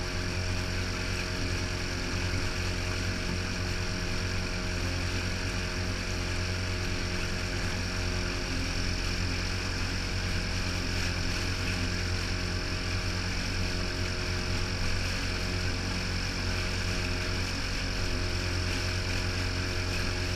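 Boat's outboard motor running at a steady speed under the load of towing a personal watercraft, with a constant low hum and the wash of the wake.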